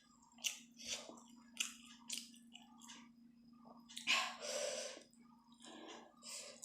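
Close-up chewing of chicken momos, with short wet mouth smacks about every half second and a louder, longer wet sound about four seconds in.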